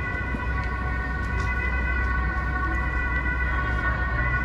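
Steady high-pitched whine of several held tones over a continuous low street rumble.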